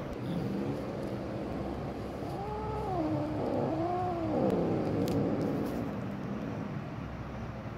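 A cat meowing twice, two drawn-out calls about a second each that rise and then fall in pitch, over a steady low background rumble.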